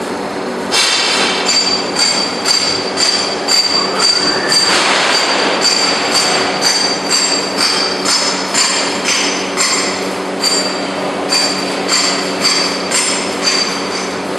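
Glazed tile roll forming machine running: a steady motor hum under regular ringing metallic clanks, about two a second, starting just under a second in, as the steel sheet is formed into step tile.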